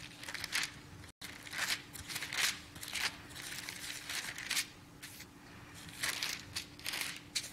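Thin Bible pages being leafed through: a run of irregular soft rustles and crinkles. A faint steady hum runs underneath, and the sound cuts out for an instant about a second in.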